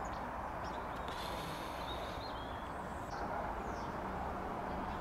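Steady outdoor background noise with a few faint, high bird chirps over it.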